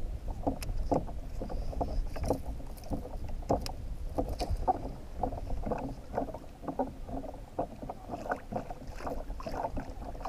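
Water lapping and slapping against a plastic kayak hull in short, irregular splashes, several a second, over a steady low rumble.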